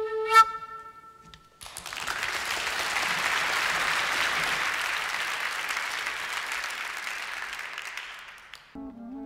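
A wooden flute's held note ends with a sharp accent, then the audience applauds for about seven seconds, slowly fading. Near the end, brass instruments start up with low notes.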